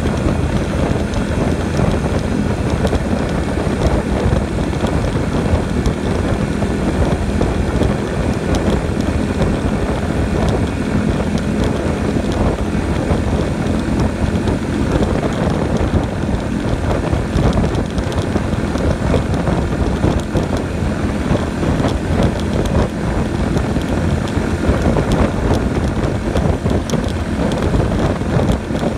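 Motorcycle running at a steady cruising speed: a steady low engine hum mixed with wind rushing over the microphone.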